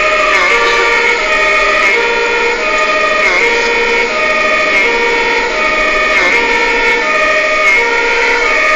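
German two-tone fire engine siren (Martinshorn), heard from inside a fire vehicle, alternating steadily between a high and a low tone about every three quarters of a second. A second siren sounds at the same time, out of step with the first.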